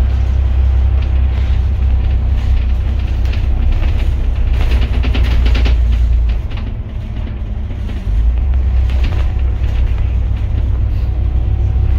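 Cabin noise of a double-decker bus driving along a highway: a heavy, steady low rumble with rattling around five seconds in. About six seconds in the rumble drops away, then comes back abruptly two seconds later.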